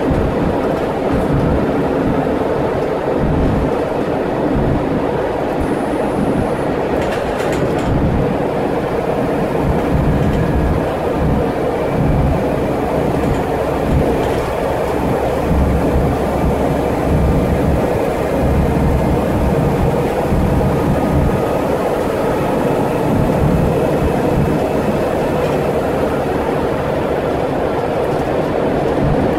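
Scania N94UD double-decker bus's 9-litre diesel engine running under way, heard inside the saloon as a steady low drone mixed with road and body noise. The low rumble grows heavier for a few seconds around the middle.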